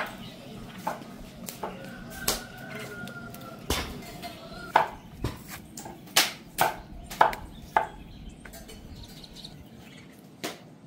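About a dozen irregular, sharp knocks and clacks of kitchen work, the loudest bunched together in the middle.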